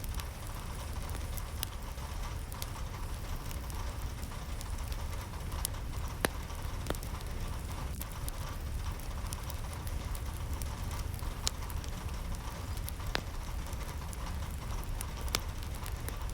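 Steady rainfall with a low rumble underneath, and scattered sharp drips and taps of drops landing.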